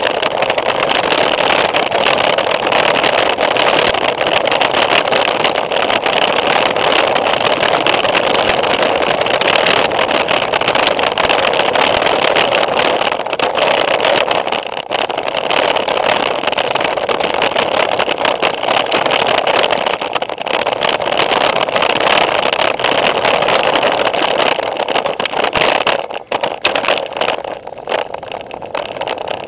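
Mountain bike descending a rocky trail: continuous loud rushing and rattling with many small knocks as the tyres and frame take the stones. From about three seconds before the end the noise drops and turns patchy as the bike rolls onto smooth pavement.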